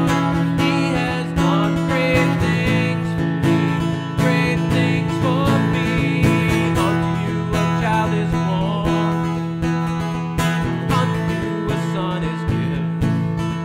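Acoustic guitar strummed and picked, playing continuously.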